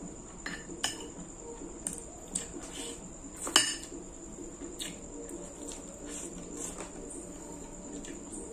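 Metal fork and spoon clinking and scraping against a plate of spaghetti, with scattered short clicks; the loudest, a sharp clink, comes about three and a half seconds in.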